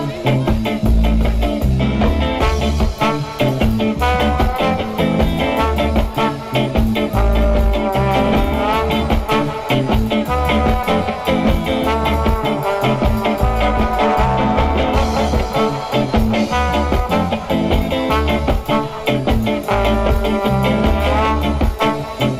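Live band playing an instrumental passage with a steady beat, in a ska-like groove.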